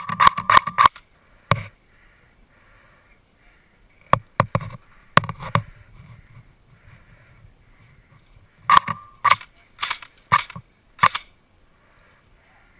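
Airsoft guns firing in short volleys of sharp shots: a quick run of shots at the start, clusters around four to five seconds, and another string from about nine to eleven seconds.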